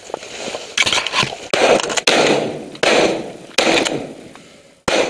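Shotguns firing a rapid volley of about six shots, each sharp report trailing off in a short echo.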